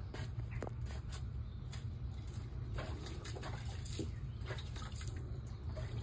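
Faint splashing and dripping of shallow water as a common snapping turtle shifts about in its tank, with a few small clicks over a steady low hum.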